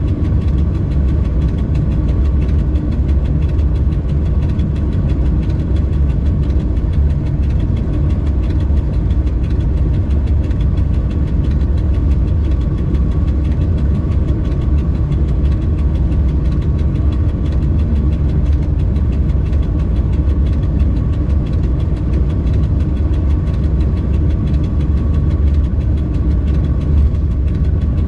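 Steady low rumble inside the cab of an electric freight locomotive running along the main line, with a faint steady whine over it.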